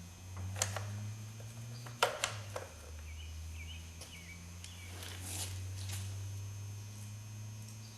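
Sharp metal clinks of sockets and hand tools being handled, several in a few small clusters, over a low steady hum.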